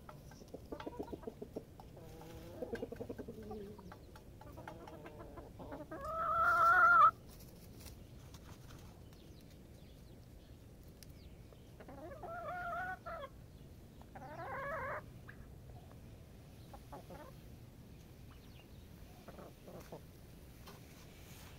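Chickens clucking softly. One loud drawn-out call grows louder and cuts off about seven seconds in, and two shorter calls follow at about twelve and fourteen seconds.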